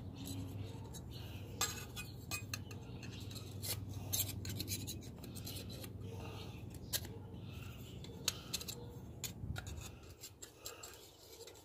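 Thin metal plates of a small flat-pack fire pit clicking, clinking and scraping against each other as their slots are fitted together by hand, in scattered light taps.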